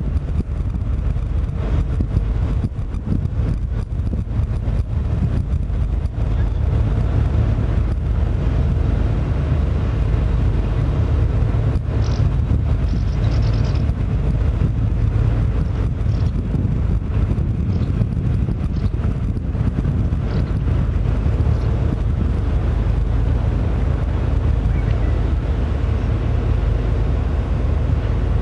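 Wind buffeting the microphone: a steady low rumble with no pitch to it.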